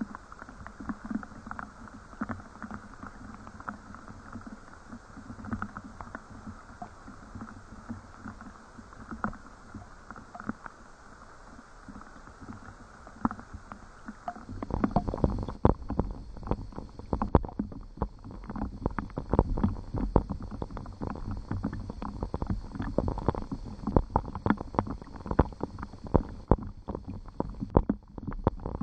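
Rain falling, with many separate drops striking close by; it turns heavier and louder about halfway through.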